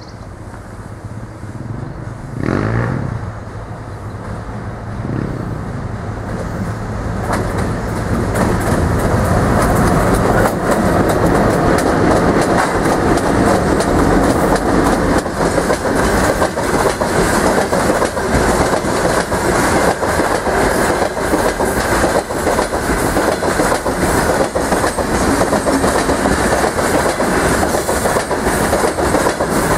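VL11M electric locomotive approaching with a steady hum that grows louder, with a short loud burst about two and a half seconds in, then passing close by. The freight gondola wagons behind it follow with a continuous rumble of wheels and rapid clickety-clack over the rail joints.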